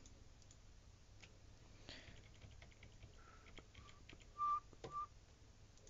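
A few short, soft whistled notes at one pitch, the loudest about four and a half seconds in, over faint computer mouse clicks.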